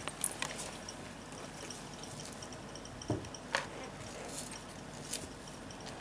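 Ferret kits and an adult ferret moving about among plastic ball-pit balls, a blanket and wood pellets: soft rustling with a few scattered sharp clicks and a dull knock about three seconds in.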